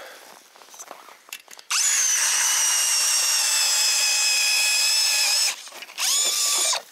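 NANWEI cordless drill turning an ice auger through lake ice: a steady motor whine for about four seconds, then a second short run a moment later that spins up quickly.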